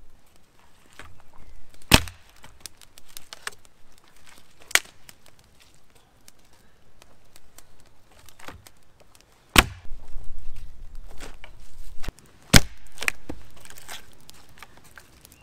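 Sticks being struck and broken up for firewood: several sharp wooden cracks, loudest about two seconds in and twice in the second half, with smaller snaps and rustling between.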